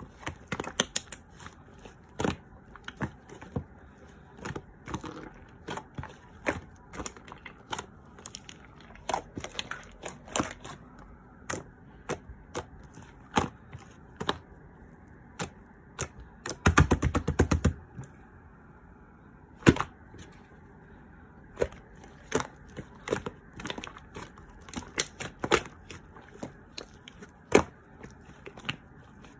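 Irregular sharp taps and clicks, one every second or so, with a quick flurry of rapid clicks about seventeen seconds in.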